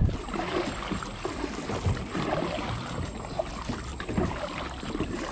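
Kayak paddle dipping and pulling through calm water, with irregular small splashes and sloshing.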